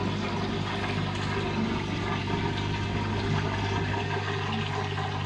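Drain pump of a 16 kg Whirlpool washing machine running with a steady hum, pumping the wash water out before the spin.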